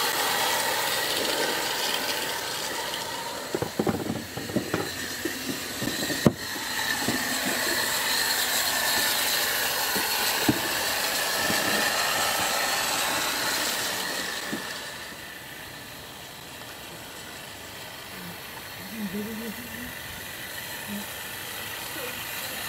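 16mm-scale live-steam model of a Single Fairlie locomotive, with an oscillating-cylinder steam engine, running with its coaches: a steady steam hiss, with a run of clicks and knocks about four to seven seconds in. The sound drops off about fifteen seconds in as the train moves away.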